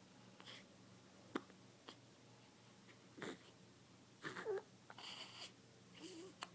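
A three-week-old baby hiccuping: short, sharp hiccups a second or two apart, the sharpest about a second in, with soft breathy grunts and small squeaks between them.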